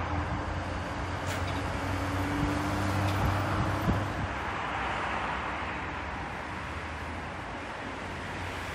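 Steady outdoor city and railway background noise with a low hum that drops out about four seconds in.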